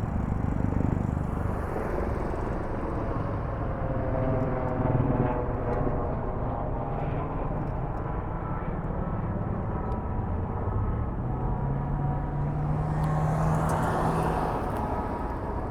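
Steady outdoor engine and traffic noise, with one engine tone rising slightly in pitch about eleven seconds in.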